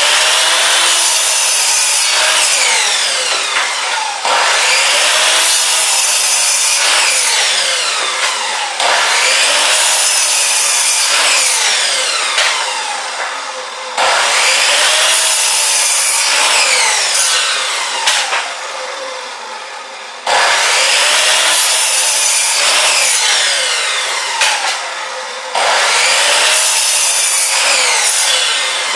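Electric chop saw cutting through wood, one cut after another. A new cut starts abruptly every few seconds, and the motor's pitch sweeps down and back up as the blade bites and loads.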